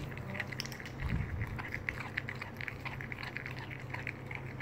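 A puppy chewing and biting into a raw pheasant, with many short, irregular chewing clicks. A steady low hum runs underneath.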